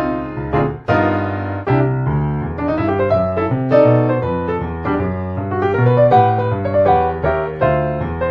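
Background piano music: a melody of changing notes over low bass notes.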